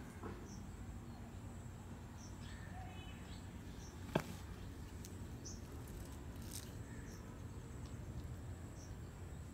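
Quiet garden ambience: a constant thin high tone with short high chirps repeating about once a second, typical of insects or small birds, and one sharp click about four seconds in.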